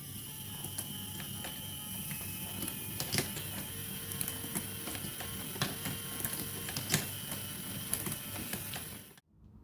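Marbles rolling and clicking along a plastic marble run track over a steady mechanical whir, with scattered sharp clicks; it cuts off suddenly near the end.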